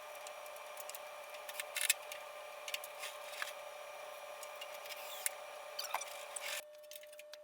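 Faint steady hiss with a thin steady tone and a few scattered small clicks and taps; the hiss drops away abruptly near the end.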